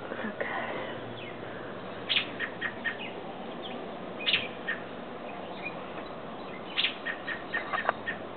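Adult American robin calling: a sharp high note followed by a few short chirps, repeated three times about every two and a half seconds.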